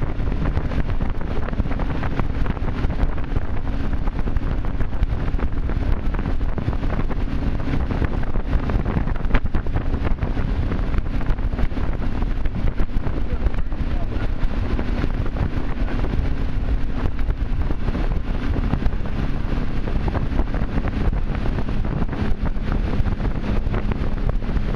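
Ski boat engine running steadily at towing speed, mixed with wind buffeting the microphone and the rush of the wake.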